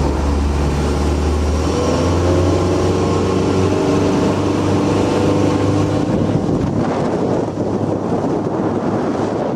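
Motorboat engine running under way, its pitch climbing slowly; about six and a half seconds in the engine note fades, leaving wind and water noise.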